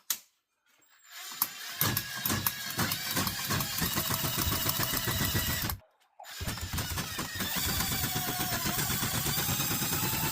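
Ryobi 18-volt cordless drain auger running, its motor spinning the cable with a rattling in the drain pipe. It starts about a second and a half in, stops for a moment about six seconds in, then runs again.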